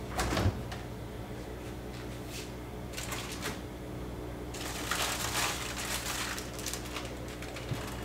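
Refrigerator door pulled open by its handle, with a thump about half a second in, followed by light clicks and rustling as things inside are moved, over a steady low hum.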